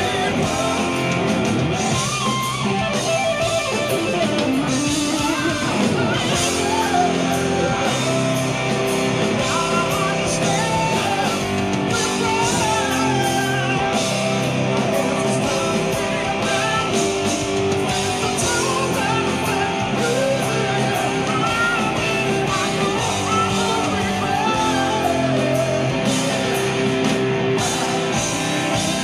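Live rock band playing: electric guitar, bass guitar and drums, with a sung lead vocal, heard from the crowd.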